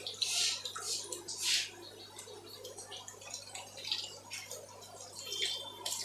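Water splashing and dripping as a handful of yellow parrot fish is lifted from a water-filled net. Two louder splashes come in the first two seconds, then smaller drips and splashes.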